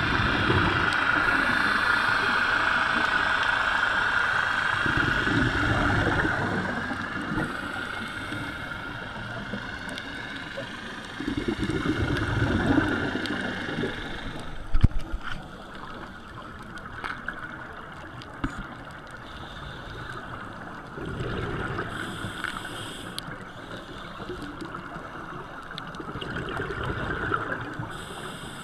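Underwater sound heard through a camera housing: scuba divers' regulators release gurgling bursts of exhaled bubbles every few seconds over a steady drone, which weakens about halfway through. A few sharp knocks come near the middle.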